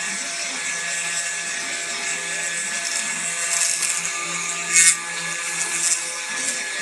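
Homemade CNC wood carving machine's spindle running steadily with a high whine, its carving bit hissing as it cuts into wood, with a short louder burst about five seconds in.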